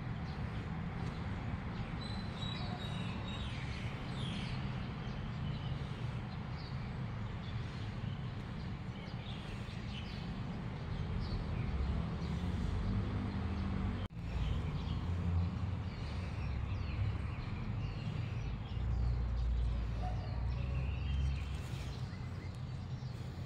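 Outdoor ambience: a steady low rumble with small birds chirping faintly now and then.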